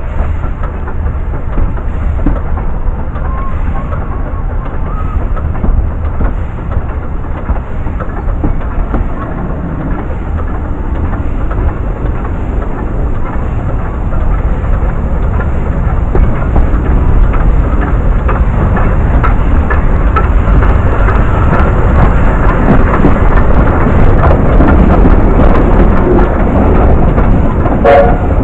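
Rumble and clatter of a Welsh Highland Railway narrow-gauge train on the move, growing louder about halfway through, with rapid clicking of wheels on the rails.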